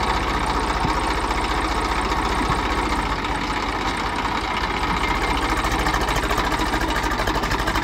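Eicher 380 tractor's diesel engine running steadily, with an even, fast pulsing beat.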